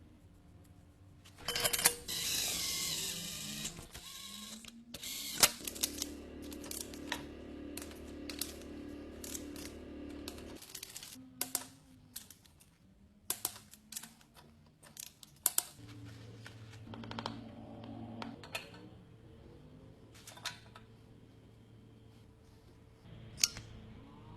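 Irregular sharp clicks and knocks, with a short burst of noise about two seconds in and a low steady hum through parts of it.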